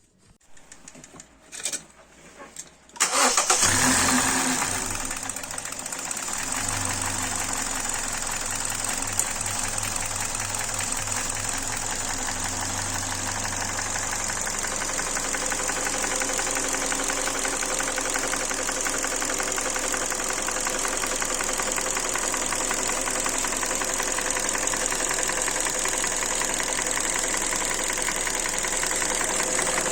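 Warm Kia/Hyundai G4NB 1.8-litre aluminium four-cylinder petrol engine starting about three seconds in, its revs settling over the next few seconds into a steady idle with the characteristic knock of this engine: a piston knock from scored cylinder walls.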